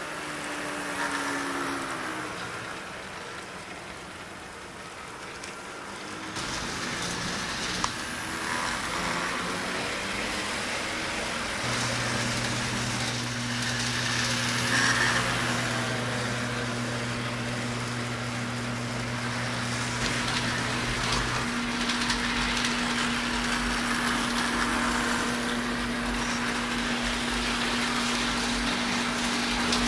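HO scale model locomotives running on a layout, a steady mechanical running noise. A steady low hum joins about twelve seconds in.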